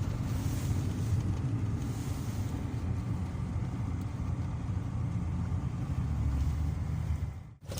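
Motor vehicle driving: a steady low engine and road rumble.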